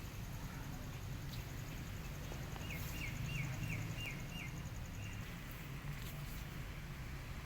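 Outdoor ambience: about two and a half seconds in, a bird gives a quick series of about six short chirps. Under it run a faint steady insect trill and a low rumble.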